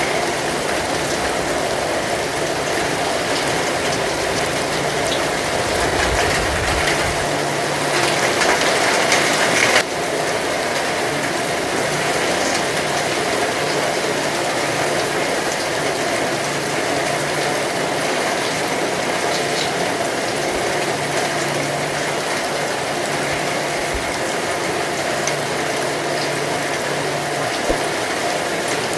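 Heavy rain falling in a steady, dense hiss. It swells louder about eight seconds in and drops back suddenly near ten seconds.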